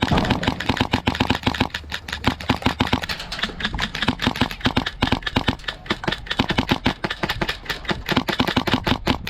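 Airsoft guns firing long rapid bursts, a dense clatter of shots with only short pauses between strings.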